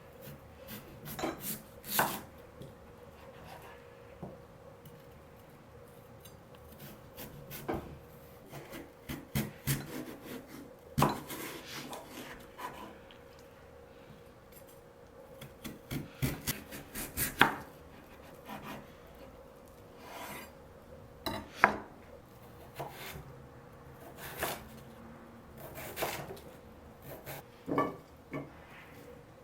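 Kitchen prep with a knife and radish on a wooden cutting board: irregular knocks and scraping in short clusters with pauses between, under a faint steady hum.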